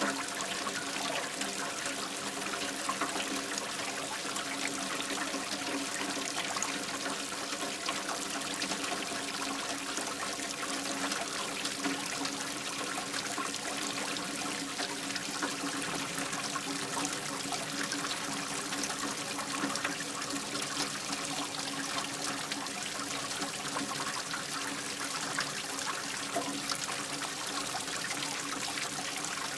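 Light rain falling with water trickling and pouring steadily into a drain, a constant hiss of many small drips with a faint low hum beneath.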